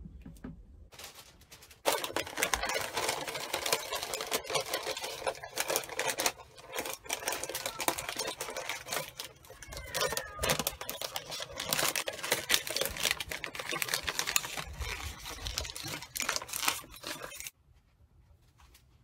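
A sheet of brown paper crinkling and rustling as it is folded and pressed down over the mouth of a glass jar. It starts about two seconds in and stops suddenly near the end.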